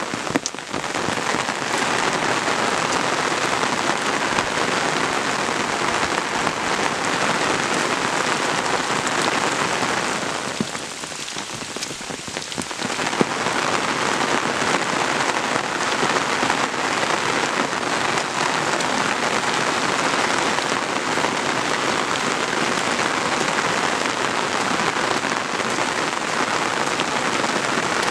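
Steady rain falling hard around the microphone, a dense even hiss that dips quieter for about two seconds partway through.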